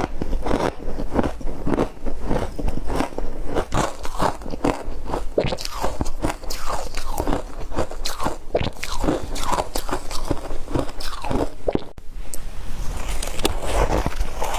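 A person chewing crunchy shaved ice close to the microphone: rapid, irregular crunches several times a second, with a brief pause about twelve seconds in.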